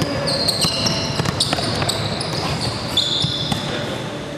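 Basketball sneakers squeaking in short, high chirps on a hardwood gym floor, with the sharp knocks of a basketball being dribbled, in a large echoing gym.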